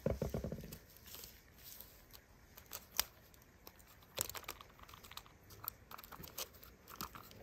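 Faint crunching and crinkling of green play sand and an aluminium foil plate as a die-cast toy truck is pulled out of the sand by hand, with scattered small clicks.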